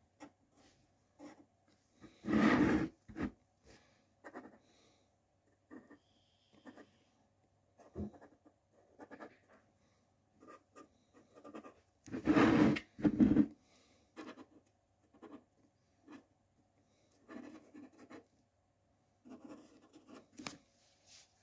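Sharpie marker writing on a plastic helmet shell in short, scratchy strokes as numbers and arrows are drawn. Twice, about two seconds in and about twelve seconds in, a louder scuffing noise stands out above the writing.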